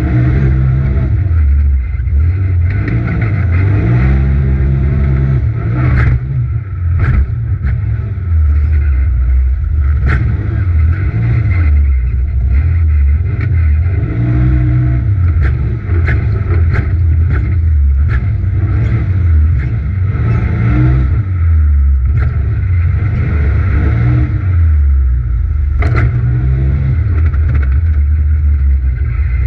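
Polaris RZR XP Turbo side-by-side's turbocharged twin-cylinder engine under hard throttle, heard from inside the cab. Its pitch rises and falls over and over as the driver gets on and off the throttle around the dirt track. Sharp knocks, the loudest about six and twenty-six seconds in, come from the chassis banging over bumps and jumps.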